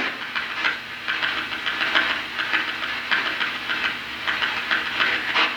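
Ghost-hunting spirit box sweeping through radio stations: choppy hissing static in quick, uneven bursts, several a second.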